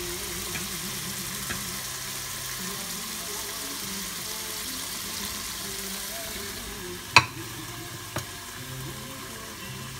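Tom yum sauce sizzling in the hot pressure-cooker pot, thinning out about two thirds of the way through. Then two sharp clacks a second apart as the spatula strikes the plate.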